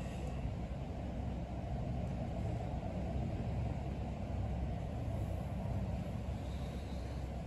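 A steady low rumble of background noise, with no distinct knocks or clanks.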